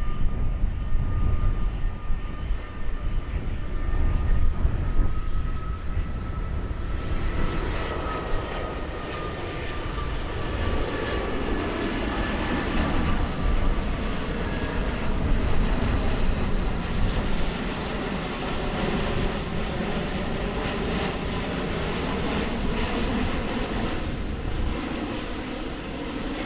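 Jet airliner passing overhead: a thin engine whine that drifts slightly in pitch, then a broad rushing jet roar with slowly sweeping tones from about seven seconds in, over a constant low rumble.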